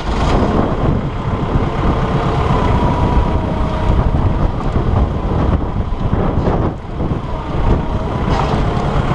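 Kubota compact tractor's diesel engine running steadily, with wind buffeting the microphone. A faint steady whine comes in a couple of seconds in.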